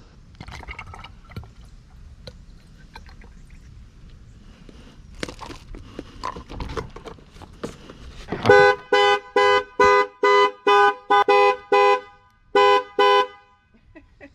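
A vehicle horn sounds in short, even blasts, about two a second and roughly ten in all, with a brief break partway through, as when a car alarm goes off. Before it come faint knocks and handling noises.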